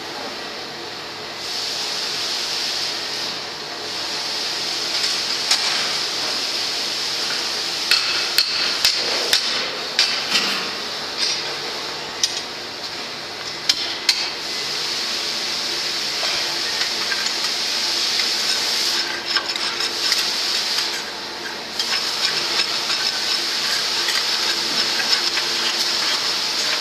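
Steady machinery hiss from a tilted rotary drum discharging grey dross into a cart, broken by sharp metal knocks and scrapes as steel rods strike and scrape the drum's mouth. The knocks cluster a few seconds in and again near the end.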